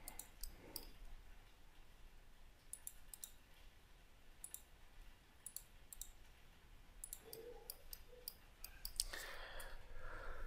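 Faint, irregular clicks of a computer mouse and keyboard as the software is worked.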